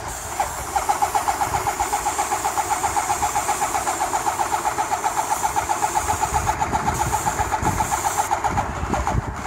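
Airless paint sprayer's pump chattering in a rapid, even pulse of about ten strokes a second while red paint is sprayed onto barn doors; it starts just under a second in.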